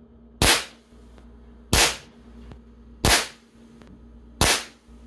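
Crosman 2240 CO2 air gun firing four pellet shots, each a sharp crack, evenly spaced a little over a second apart.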